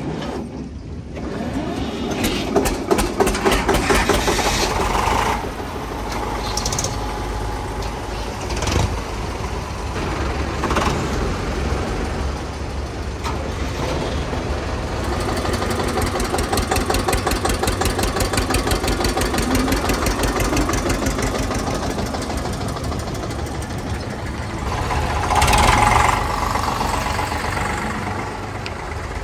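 Diesel tractor engines starting and then running at idle with an even knocking beat. One engine revs up briefly about 25 seconds in.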